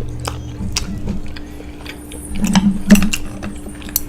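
Close-miked eating sounds: a person chewing, with a run of sharp clicks and taps that are loudest about three seconds in.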